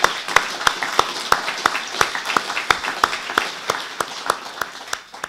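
Audience applauding, with sharper single claps about three a second standing out from the crowd's clapping; the applause dies away just before the end.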